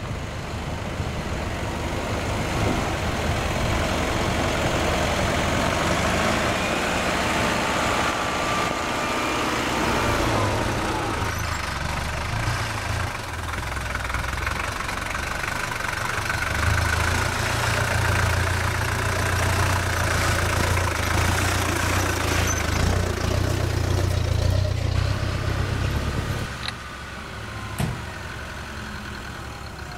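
Four-wheel-drive vehicle engine running at low speed while crawling up a rough, rocky track: a steady low hum under a noisy wash. The sound shifts at about eleven seconds, and it drops in level near the end.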